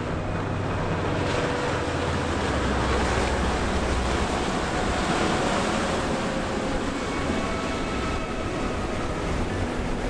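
A 62-foot sportfish yacht running past at speed: a steady rush of wake and water mixed with wind on the microphone, under a low engine drone that fades after about four seconds.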